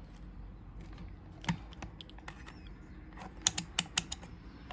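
A few sharp clicks: one about a second and a half in, then four in quick succession about three and a half seconds in, over a faint low hum.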